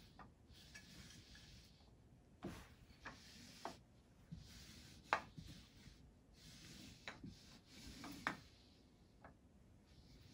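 Quiet handling of wooden puzzle pieces on carpet: soft sliding and rubbing as pieces are pushed into place, with a handful of light wooden taps as they are set down.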